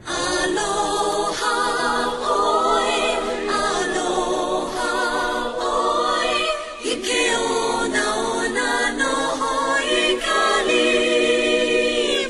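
A group of voices singing a song together in harmony, choir-style, with wavering sustained notes.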